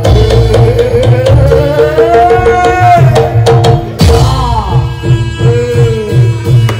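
Javanese gamelan music accompanying a barongan dance: kendang hand drums beating hard, with strokes that bend down in pitch, over a steadily repeated pitched note and a wavering melodic line.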